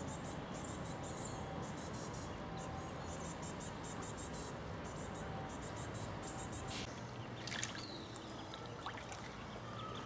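Outdoor ambience: steady low background noise with a run of faint, fast, high-pitched ticks and chirps, and one short, sharp chirp with a falling tone about seven and a half seconds in.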